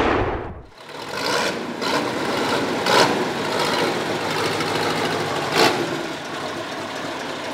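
Perkins V8 diesel engine in a Ford 7700 tractor running at idle, with a few short sharp peaks. A loud crash fades out over the first second.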